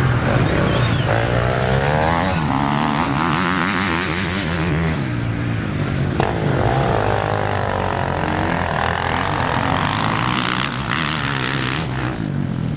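Motocross bike engines revving on the dirt track, their pitch climbing and dropping again and again as the throttle opens and closes.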